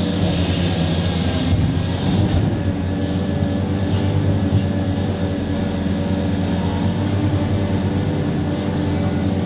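Hitachi 870 excavator's large diesel engine running steadily during loading, a constant deep hum with no pauses.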